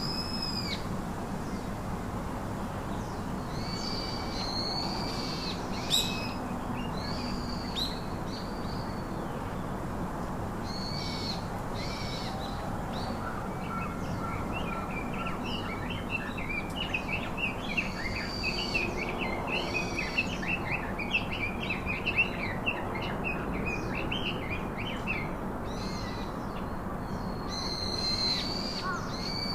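Several wild birds calling: repeated high, arching calls throughout, and a stretch of rapid twittering chatter from about halfway in, over a steady background hiss.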